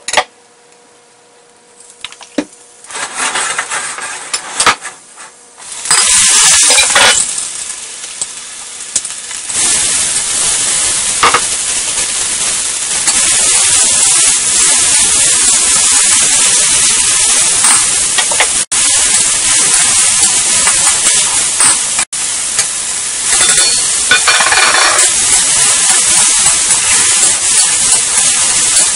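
Hot oil in a wok sizzling as diced shiitake mushrooms, carrots and peas are stir-fried with a metal spatula scraping and tossing them. Quiet for the first couple of seconds, the sizzle builds from about three seconds in and then stays loud and steady.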